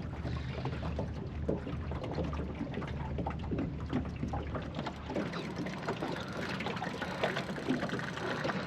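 Water lapping and trickling, with many small scattered clicks and knocks. A low steady hum fades out about halfway through.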